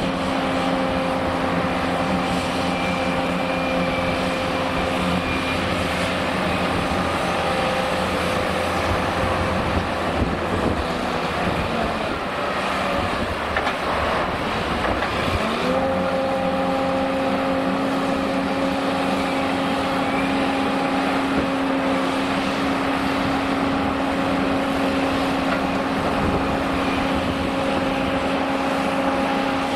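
Liebherr R980 SME front shovel's diesel engine running under load while digging and loading, with a steady pitched hum. The hum drops away about a third of the way in, then rises in pitch a little past halfway and holds steady.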